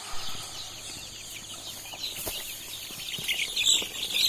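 A flock of desi chickens calling all at once: many short, overlapping high-pitched calls, a few louder ones near the end.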